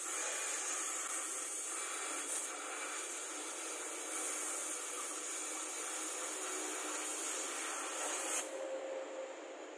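Oxy-fuel gas torch hissing steadily as its flame works on the rusted steel of the car's door pillar, throwing sparks. The hiss drops off sharply near the end and fades out.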